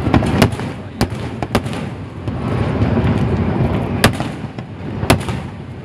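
Aerial fireworks shells bursting: about six sharp bangs, four in the first two seconds and two more later, over a continuous low rumble of the display.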